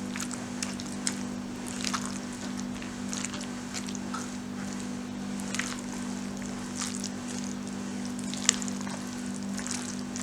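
Food-preparation handling sounds: scattered light clicks and soft wet noises from utensils and ingredients, one sharper click about eight and a half seconds in, over a steady low hum.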